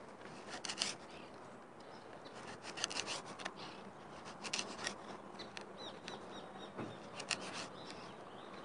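Kitchen knife slicing a small mojarra into thin strips on a wooden cutting board. The blade rasps through the fish and taps the board in short runs of cuts, a second or two apart.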